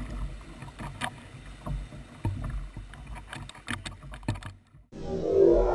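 A kayak being paddled through choppy sea: a low water rumble with irregular sharp knocks and splashes from the paddle strokes and the waves against the hull. It cuts out about four and a half seconds in, and electric guitar music starts near the end.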